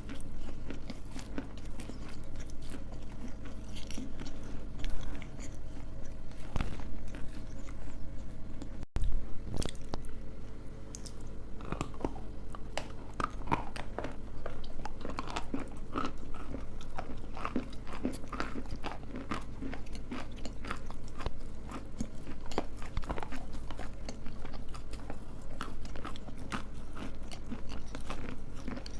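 Edible clay being bitten and chewed close to the microphone: dense, irregular crunches with a brief break about nine seconds in.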